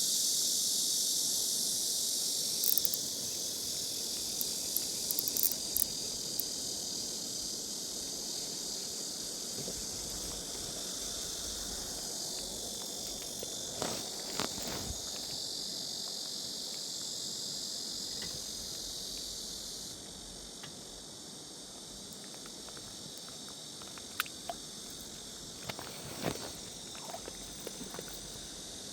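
Summer insects shrilling in a steady, dense high chorus that thins a little about two-thirds of the way through, over a low even rush of stream water, with a few faint clicks and knocks.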